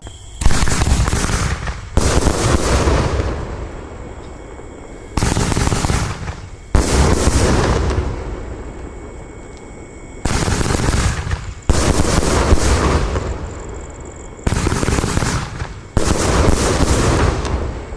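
Consumer F2 compound firework cake firing. Sharp bangs come in pairs about a second and a half apart, a new pair every four to five seconds, and each bang is followed by a fading crackle.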